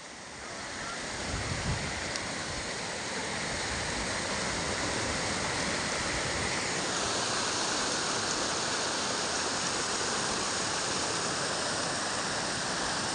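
Rocky mountain stream rushing over boulders and small rapids: a steady rush of white water that builds over the first second and then holds even.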